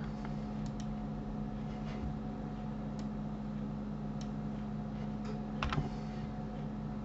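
A few scattered clicks from a computer keyboard and mouse, with a short cluster of clicks near the end, over a steady low hum.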